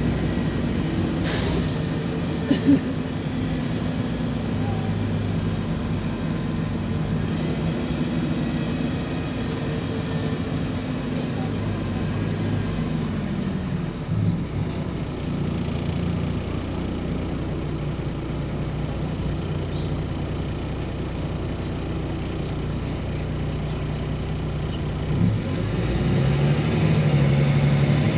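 LiAZ 5292.22 city bus's diesel engine and drivetrain heard from inside the passenger cabin, running steadily as the bus moves through traffic, with a couple of sharp knocks a second or two in. Near the end the engine gets louder as the bus picks up speed.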